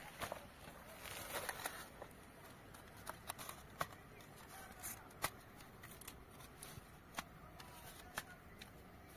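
Scattered sharp plastic clicks and soft rustling as a folding quadcopter drone is lifted out of its foam carrying case and its arms are swung open and snapped into place.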